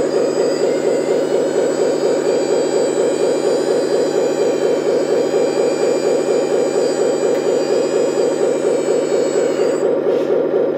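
RC truck's speaker sound module playing a diesel engine running with an even throb. Over it comes the high whine of the truck's small hydraulic pump and motor as the tipper bed lowers; the whine stops near the end as the bed comes down.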